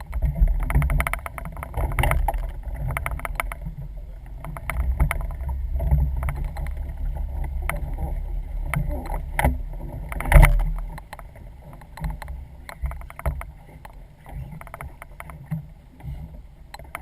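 Low rumbling wind-and-water noise on a small fishing boat, with scattered knocks and clatter and one heavy thump about ten seconds in.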